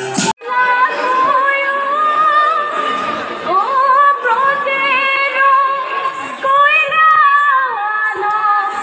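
A woman singing long, held notes that waver and slide in pitch, with no percussion under them. Just at the start, tambourine-led music cuts off abruptly before the singing begins.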